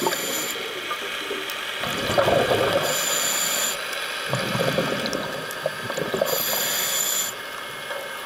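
Scuba diver breathing through a regulator underwater: two slow breath cycles, each a rush of exhaled bubbles followed by the hiss of an inhalation, which carries a faint high whistle.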